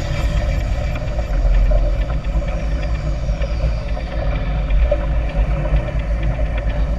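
Speedboat running at speed, a steady loud rumble of engine and rushing air and water with no break.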